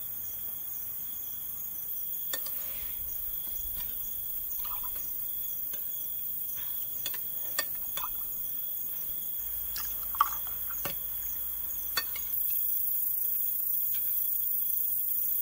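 Crickets chirping steadily, with a few sharp clinks of glasses, dishes and cutlery at a meal table, the loudest about ten seconds in.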